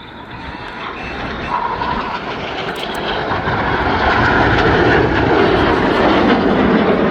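BAE Hawk T1 jet aircraft flying past, the noise of their Rolls-Royce Adour turbofans growing steadily louder over about four seconds and then holding loud.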